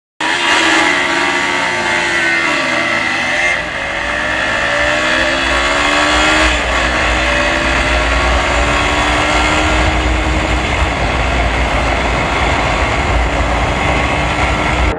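Yamaha Fazer 25's single-cylinder engine accelerating hard under load, its pitch climbing and dropping at upshifts about 3.5 and 6.5 seconds in, then holding high and rising slowly. Heavy wind rumble on the microphone comes with it.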